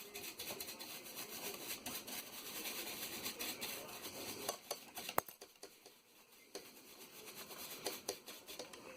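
Scratchy rubbing and many light clicks of small hard objects being handled close by, with one sharper click about five seconds in.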